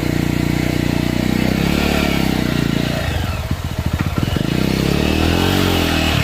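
Single-cylinder motorcycle engine revved hard under load on a rocky off-road climb, its pitch rising and falling twice before dropping back toward idle near the end.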